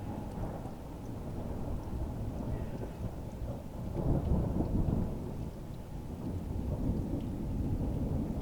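Thunder rumbling low and long, swelling loudest about four seconds in and building again near the end, over the hiss of rain.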